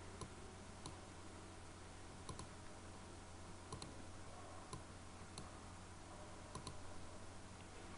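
Faint computer mouse clicks over a low, steady hum. The clicks come at irregular intervals, some single and some in quick pairs.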